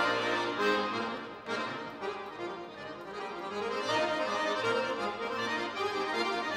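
Cooperfisa handmade button accordion playing solo classical music in quick runs of notes, dipping softer about a second and a half in, then building fuller again.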